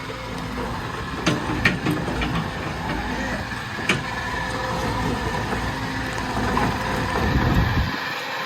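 Caterpillar 308E2 CR mini excavator's diesel engine running steadily, with a few sharp clicks about a second and a half in and again near four seconds.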